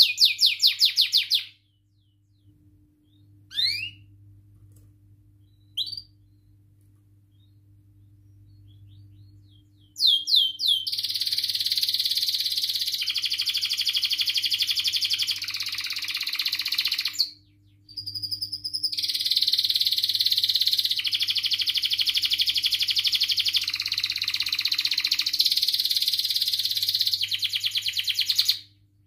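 Domestic canary singing: a short burst of rapid trills, a pause broken by two brief chirps, then two long unbroken runs of fast rolling trills, about seven and eleven seconds long, with a short break between them.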